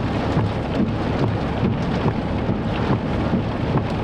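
Heavy rain pelting a vehicle's roof and windows in a thunderstorm's rain core, a dense steady patter of many small drop hits over a steady low rumble.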